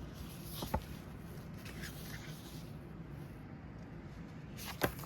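Paper pages of a press kit being handled and turned: soft rustling with two sharp taps, a small one about a second in and a louder one near the end.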